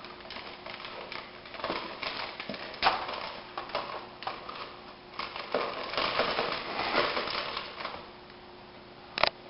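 Crinkling and rustling of the paper inner bag of a Bisquick box as a plastic measuring cup digs into the dry mix, in irregular bursts, with a sharp click near the end.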